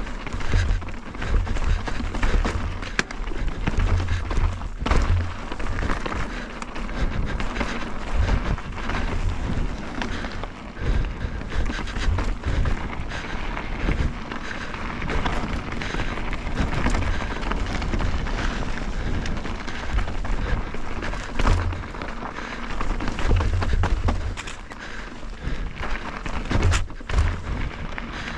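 Mountain bike riding a rocky trail: wind buffeting the microphone in uneven low gusts, with the tyres and bike clattering and knocking over rocks throughout, and music underneath.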